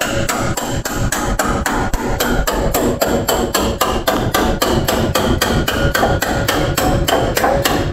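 Steel hammer rapidly striking a cold chisel driven along a van's spot-welded steel body flange, about four or five sharp metal-on-metal blows a second. The chisel is splitting the old quarter panel away at its drilled spot welds.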